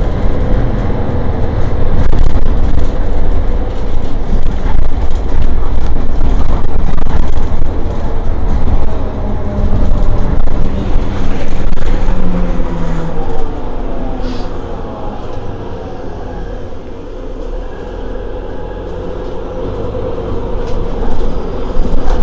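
Diesel engine of a Mercedes-Benz Citaro G C2 Euro 6 articulated bus idling while parked: a steady low rumble with a hum over it. The loudness swells and dips, easing off in the second half.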